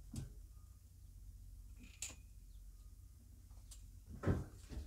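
A few faint clicks while a person lowers slowly from a pull-up bar, then a louder thump about four seconds in as a foot comes back down onto the metal folding chair. A low steady hum runs underneath.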